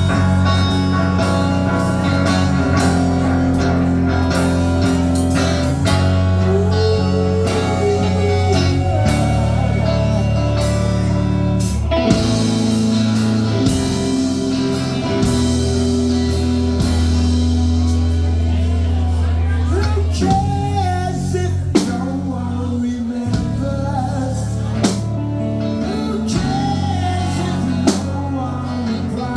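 Rock band playing a song, with a singing voice over guitar, bass and drums.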